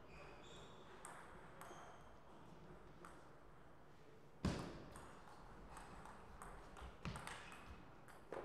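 Table tennis ball clicking against paddles and the table. There are a few light ticks first, then a sharp serve hit about four and a half seconds in, followed by a quick rally of clicks that ends near the close.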